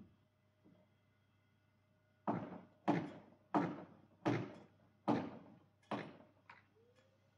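Hammer blows on the wooden barn door: seven sharp strikes about two-thirds of a second apart, starting about two seconds in, the last one lighter.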